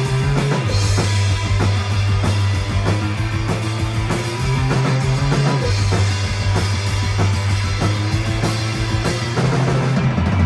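Live rock band playing loud: distorted electric guitars over a drum kit with steady beats and cymbals, and a held low bass line that changes note every few seconds.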